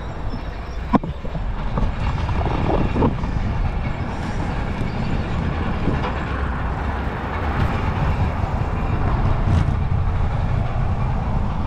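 Road traffic noise from cars passing on the road beside the cycle path, a steady low rumble, with one sharp click about a second in.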